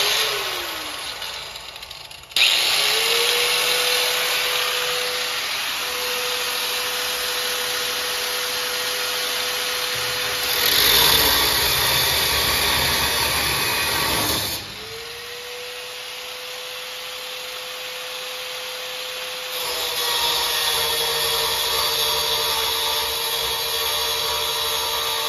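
Angle grinder with a cutoff wheel spinning up about two seconds in and cutting into a metal latch plate. The motor's steady whine drops a little under load while the louder grinding comes and goes. It stops briefly about midway, then spins up again for another cut.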